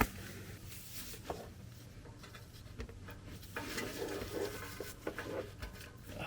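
Faint clicks and light rustling of tools and parts being handled, over a low steady hum.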